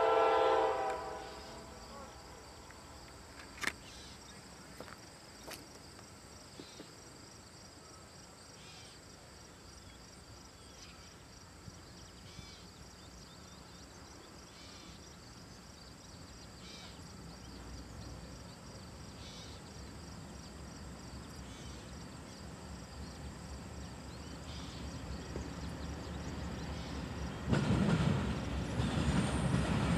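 An approaching Norfolk Southern intermodal train's horn cuts off about a second in. Then insects chirp in short bursts every couple of seconds over a faint steady high buzz, while the low rumble of the train, led by a GE C44-9W diesel locomotive, slowly grows and turns suddenly louder near the end.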